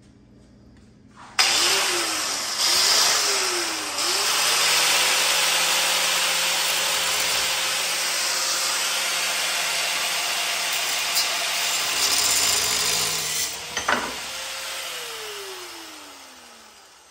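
Power cutting tool with a spinning wheel, most likely an angle grinder, cutting through a steel mower spindle. The motor starts about a second in, its pitch dips twice as the wheel bites, then it runs steadily under a loud hiss of the cut; near the end there is a sharp knock and the motor winds down with a falling tone.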